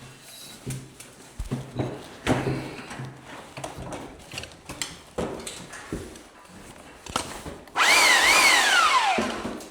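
Scattered knocks and clatter, then near the end a power tool's motor runs loudly for about a second and a half, its whine rising and dipping, and spins down as it is switched off.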